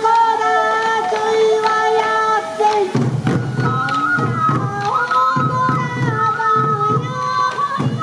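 Sansa odori festival music: bamboo flutes playing a stepping melody, joined about three seconds in by taiko drums beating a steady rhythm.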